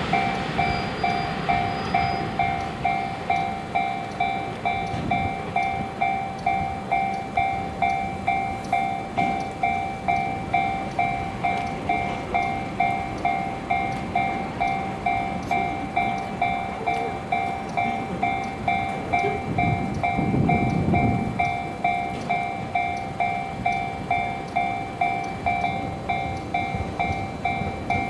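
Japanese railroad crossing alarm ringing steadily, about two rings a second, with the low rumble of a train on the line underneath.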